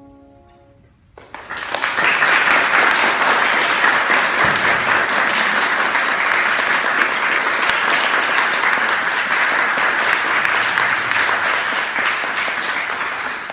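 The last held French horn note fades out, then applause breaks out about a second in, steady and loud, dying down near the end.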